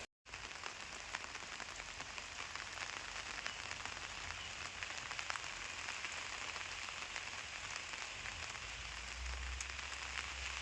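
Steady rain falling, a dense hiss with many individual drops ticking, and a low rumble coming in near the end.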